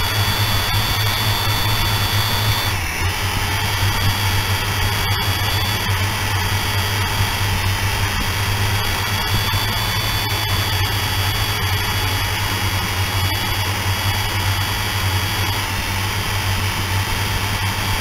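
Quadcopter drone's electric motors and propellers whining steadily in flight, heard close up from its own onboard camera, over a low hum. The whine's pitch shifts briefly about three seconds in.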